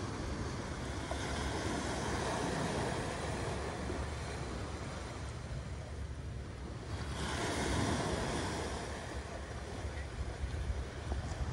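Small waves washing up onto a sandy shore, the wash swelling twice, about two seconds in and again about eight seconds in, over a steady low rumble of wind on the microphone.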